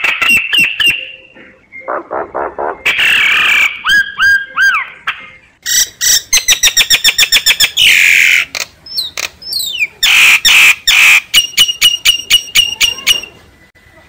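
A myna calling in a varied, loud run: fast rattling clicks, whistled notes with rising and falling glides, and a harsh screech, stopping shortly before the end.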